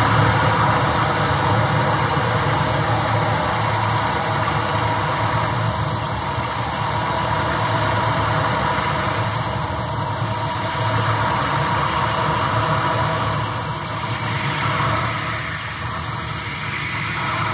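Electronic noise-music drone: a dense, steady wash of many held tones over a low hum, easing slightly near the end.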